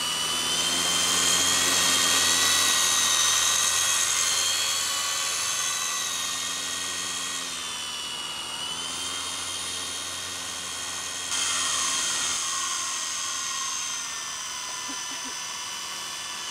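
Radio-controlled model helicopter flying overhead: a high-pitched whine of its motor and rotor blades that shifts in pitch as it manoeuvres, loudest in the first few seconds and stepping up again suddenly about eleven seconds in.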